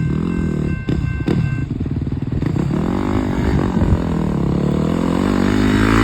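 Motor vehicle engine running and passing, its pitch rising and falling as it speeds up and eases off, growing louder toward the end. A steady ringing tone over it stops about a second and a half in.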